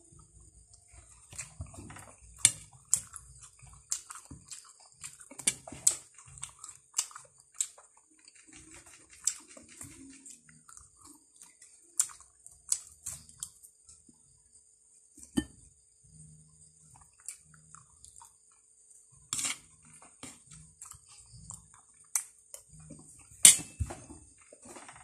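A person eating fried food: chewing and crunching, with sharp clicks of a spoon and dish scattered throughout, over a steady high-pitched hiss.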